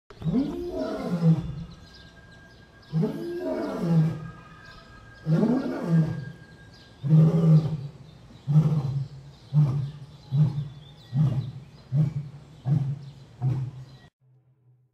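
A lion roaring: three long moans that rise and fall in pitch, then a run of shorter grunts that come closer and closer together and stop near the end.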